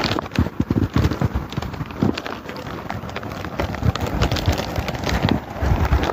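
Wind buffeting the phone's microphone in irregular low rumbles and thumps, with rough rustling and footsteps on a rocky mountain path.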